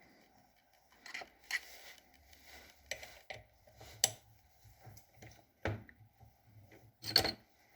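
Metal tools and parts clinking and knocking as they are handled and set down while cleaning up at a small lathe, with irregular light clicks and sharper knocks about four and seven seconds in.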